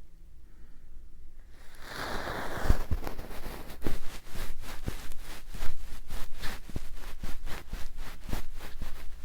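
Close-miked ASMR trigger sounds: after a brief quiet gap and a soft rustle, a long run of quick taps or clicks right on the microphone, about four a second.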